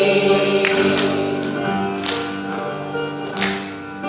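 Instrumental interlude of a Korean folk song: sustained pitched accompaniment with a few sharp drum or tap strikes, growing quieter toward the end.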